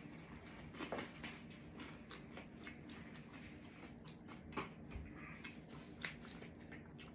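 Faint eating sounds of fried chicken eaten by hand: chewing and wet mouth clicks, with scattered small ticks as the fried chicken is pulled apart.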